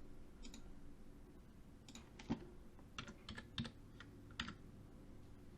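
Computer keyboard keys tapped in a few irregular clicks, sparse at first, with a quick run of taps about three seconds in.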